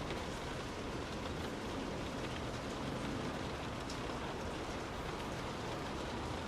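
Steady rain drumming on a car's roof and windows, heard from inside the car: a dense even patter with many small individual drop strikes.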